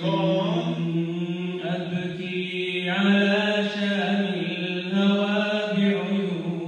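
Vocal chanting: a voice sings a slow melody in long, held notes that glide gently from one pitch to the next.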